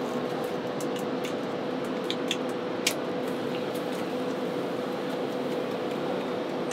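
Steady machine hum with a constant tone. A few light clinks of aluminium cooking pots and lids being handled at a charcoal stove, the sharpest about three seconds in.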